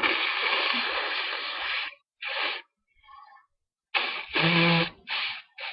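A person blowing their nose hard. There is one long forceful blow of about two seconds, then several shorter blows. The blow about four seconds in carries a low, pitched honking tone.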